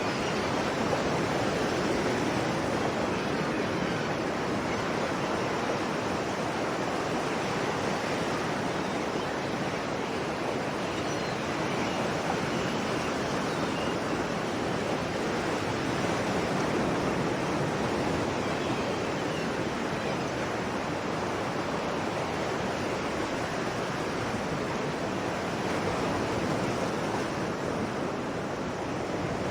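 Sea waves: a steady, continuous wash of surf with only slight swells in loudness and no single crash standing out.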